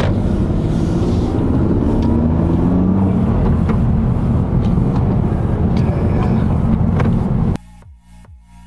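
The 2017 Honda Civic Si's turbocharged four-cylinder engine running hard under acceleration, heard inside the cabin, its pitch climbing and dropping as the manual gearbox is shifted. The sound cuts off suddenly near the end, leaving quiet background music.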